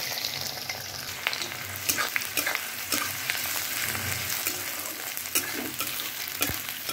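Finely chopped onions sizzling in hot oil just after being tipped into the pan, with a steady hiss and short sharp clicks of a spoon stirring against the pan.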